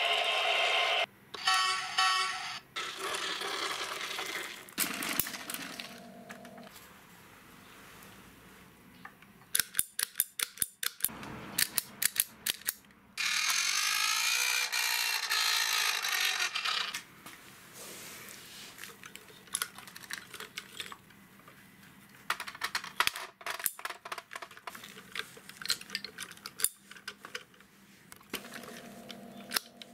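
Plastic toy vehicles being handled: electronic sound effects and short beeps from a battery-powered toy airliner at first, a steady hissing toy sound effect about halfway through, and scattered clicks and taps of plastic parts and wooden sticks.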